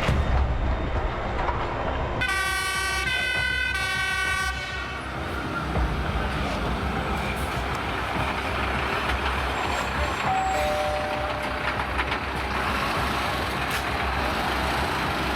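Fire engine siren sounding briefly about two seconds in, stepping between two tones, over the steady low rumble of fire apparatus engines running at a fire scene.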